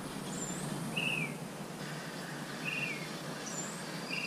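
Wild birds singing: a short down-slurred note repeated three times, about a second and a half apart, with a couple of brief higher chirps in between. Under them runs a steady low hum of distant road traffic.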